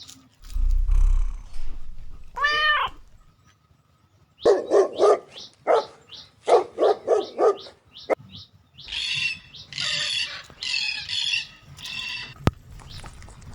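A dog barking in a quick run of about eight barks, followed by four harsher, higher-pitched calls.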